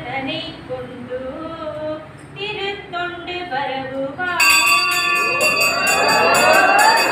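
A group of devotees singing a devotional chant. About four seconds in, temple bells suddenly start ringing rapidly and louder, joined by rising, wavering pitched tones.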